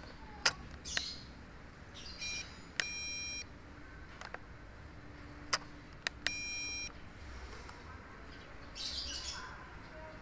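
Two short electronic beeps, each a steady tone about half a second long and about three and a half seconds apart, with birds chirping and a few sharp clicks.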